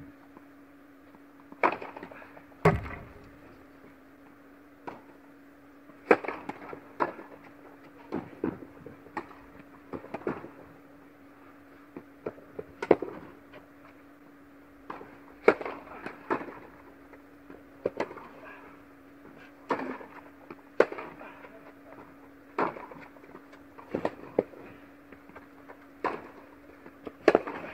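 Tennis rally: sharp pops of a tennis ball struck by rackets and bouncing on the court, about one every second, with a few pauses between points, over a steady low hum in an echoing hall.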